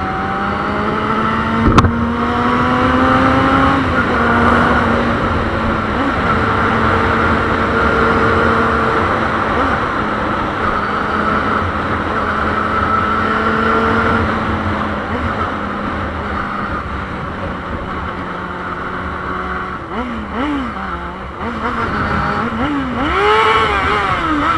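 Yamaha Fazer 600's inline-four engine under way with wind rush, its pitch rising over the first few seconds as it accelerates, then holding steady. A sharp knock comes about two seconds in, and the pitch swings quickly up and down several times near the end.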